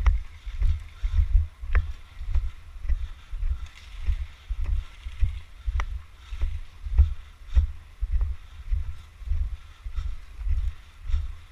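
Footsteps of someone walking, heard as low thuds about two a second through a body-worn camera, with a few scattered sharp clicks.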